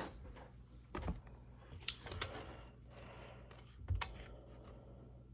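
Eating sounds: three sharp clicks, about one, two and four seconds in, among soft wet mouth and chewing noises from eating canned pears and cottage cheese.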